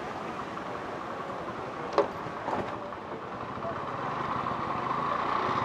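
A motorbike's engine running as it rides slowly, with voices of people in the background and a single sharp click about two seconds in. The noise grows a little louder near the end.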